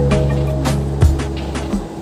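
Background music with a steady beat: held bass notes under a drum hit about three times a second.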